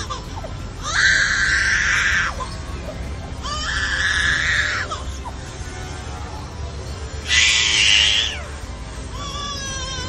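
Superb lyrebird mimicking a crying human baby: three loud wails, each a second or more long, at about one, three and a half, and seven seconds in.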